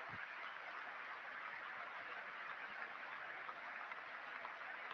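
Large stadium crowd applauding, a steady, even clatter of many hands.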